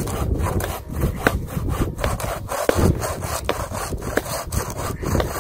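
Hand saw cutting through a dry, gnarled dead branch for firewood, in uneven rasping strokes about twice a second.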